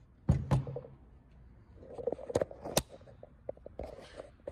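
Handling knocks and clicks on a door as the routed mortise is checked. Two heavy knocks come just after the start, then two sharp clicks about two and a half seconds in, followed by smaller taps and rustling.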